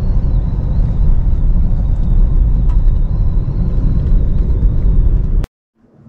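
Steady low rumble inside a car driving along a dirt track: engine and tyre noise. It cuts off abruptly about five and a half seconds in.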